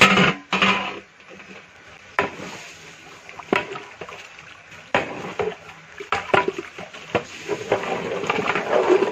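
Chicken pieces tipped from a metal bowl into a large aluminium pot of broth, with a splash at the start. Then the long metal stirring pole knocks against the pot several times while the liquid sloshes.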